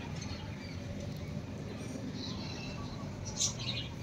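Small birds chirping faintly over a low steady outdoor background, with one louder, short, high chirp a little over three seconds in.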